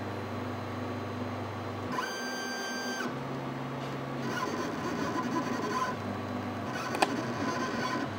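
X-Carve CNC machine's stepper motors driving the gantry through a dry run: a steady hum that changes to a higher whine about two seconds in, then shifts pitch again several times as the moves change. A single sharp click near the end.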